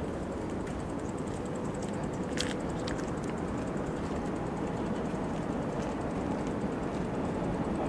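Low steady outdoor rumble, slowly growing louder, with a few short sharp high clicks about two and a half and three seconds in.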